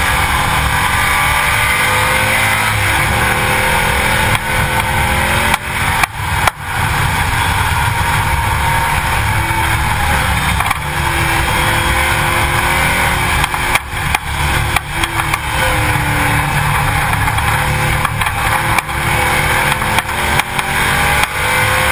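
Race car at speed, heard from a camera mounted beside a rear slick tire: engine running under a heavy rush of wind and road noise, with the level dipping briefly several times.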